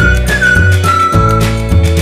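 Background music: a high, whistle-like lead melody that slides between held notes, over changing bass notes and a steady beat.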